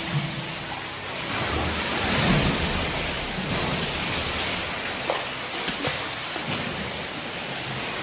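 Sea water washing and sloshing against rock, a steady rushing hiss with a few faint clicks.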